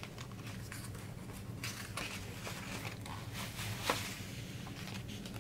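Paper rustling and soft handling noises as a page of a hardcover picture book is turned, with a brief louder slap of the page about four seconds in, over a low steady hum.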